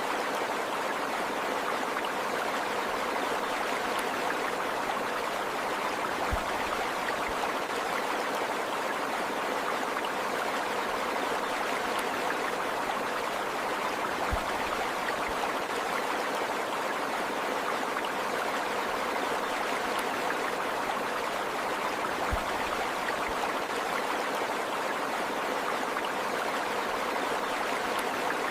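Running water flowing steadily, a continuous even rush like a stream, with a faint low thump about every eight seconds.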